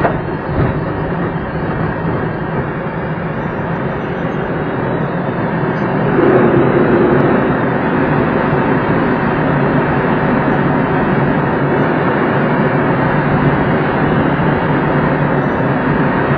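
Steady rush of airflow over a glider's canopy with the tow plane's engine running ahead during an aerotow climb; the noise grows louder about six seconds in.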